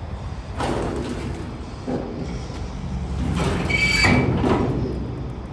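Sheet-metal drawer in the base of a Pro-Plas 1530 CNC plasma table being pulled out on its runners, sliding and rattling in a few short strokes, loudest about four seconds in with a brief metallic ring.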